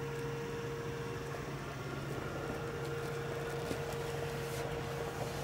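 A steady low hum holding two tones, with a few faint clicks and knocks.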